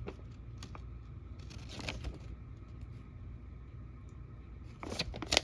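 Hands handling toy packaging: a few faint clicks and brief rustles of cardboard and plastic, with a louder cluster of clicks near the end.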